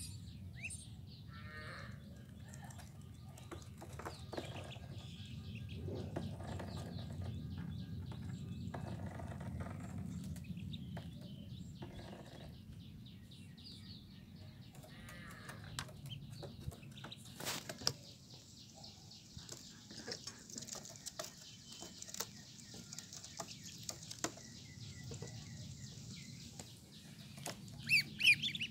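Ducklings peeping in short chirps over a low steady rumble, with scattered clicks and taps of their feet and bills on the plastic tub; the peeps get louder near the end.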